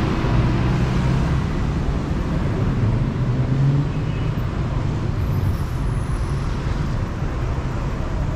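Steady city street traffic noise, with a low engine hum that is strongest in the first few seconds.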